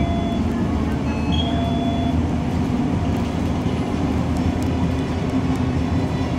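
Steady engine drone and road noise of a moving city bus, heard from inside the passenger cabin.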